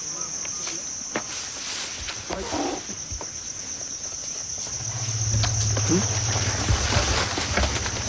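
Insects chirring steadily in a high, even band. About five seconds in, a low steady rumble joins in and becomes the loudest sound.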